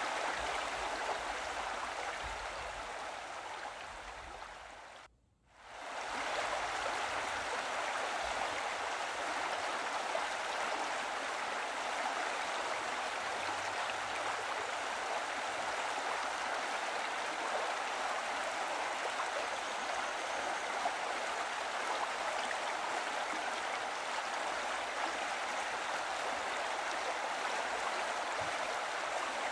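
Steady running water, like a flowing stream, with a smooth even rush. It fades away to near silence about five seconds in, then swells back and runs on unchanged.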